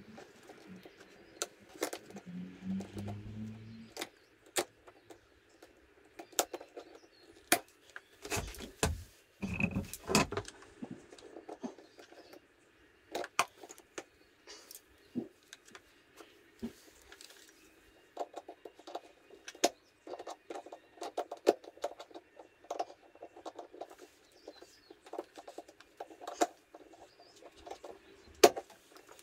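Scattered clicks, taps and light clatter of hand work on a motorcycle's cooling system, as tools and silicone coolant hoses are handled. A few heavier knocks come about eight to ten seconds in.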